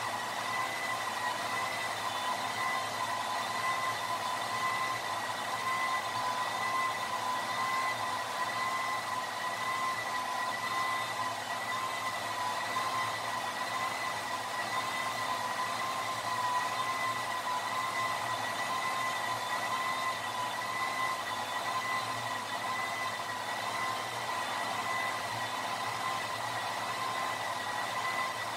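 A motor-driven machine running steadily: a high whine over an airy hiss, with no change in speed or pitch.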